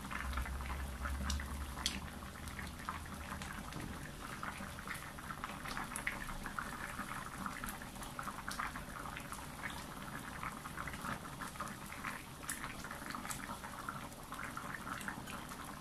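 Chicken curry simmering in a wok, the thick sauce bubbling with many small pops and an occasional sharper click.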